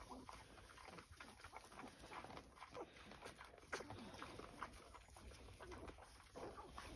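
Faint, scattered squeaks and soft grunts of a sow and her newborn piglets suckling.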